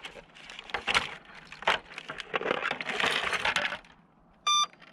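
Clicks, knocks and crunching as the broken 3D-printed plastic fuselage of a crashed FPV plane is handled and set down on loose gravel, loudest a little over two seconds in. One short electronic beep sounds near the end.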